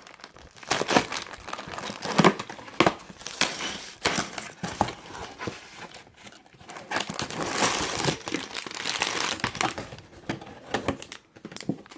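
Lego set packaging being opened and handled: irregular crinkling and rustling of the plastic parts bags and the cardboard box, with sharp crackles and a little tearing.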